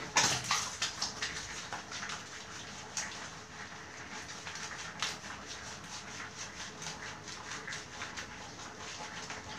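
Hands scrubbing a wet, soapy cat's fur, with many short wet squelches and splashes of water on a tiled floor; the loudest comes right at the start.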